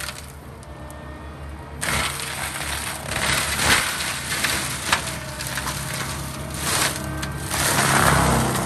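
Gyrotrac 500HF forestry mulcher head on a compact track loader grinding brush and small wood: the spinning drum chews material with crackling and sharp snaps over the loader's steady engine. The mulching noise comes up loud after a quieter first couple of seconds.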